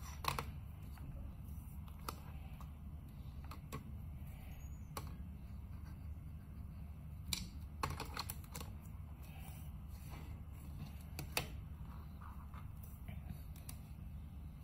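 Scattered light plastic clicks and clacks from a white C7 plug adaptor and an Omega 200 charger being handled, fitted together and pushed into a power-strip socket. A sharper cluster of clicks comes about halfway through, and a steady low hum runs underneath.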